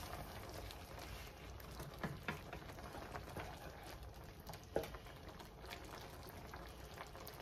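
Thick cream sauce bubbling in a pan while a wooden spoon stirs through it, with a few light taps of the spoon against the pan.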